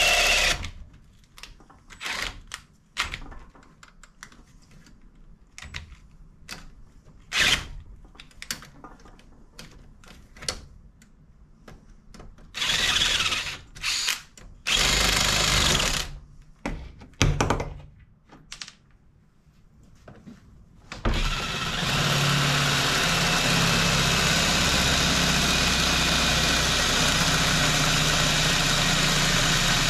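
Power drill boring out the rivet pins on a metal seat bracket with a plain twist bit. It starts and stops in several short bursts, with knocks between them, then runs steadily under load for the last nine seconds or so.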